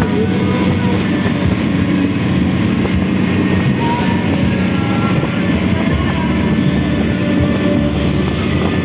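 Engine of a motorised outrigger boat running steadily under way, with water rushing and splashing against the hull and outrigger floats.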